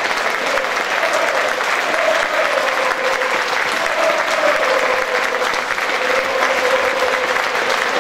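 Large football stadium crowd applauding steadily: a minute of applause in tribute. A long wavering note runs through the clapping.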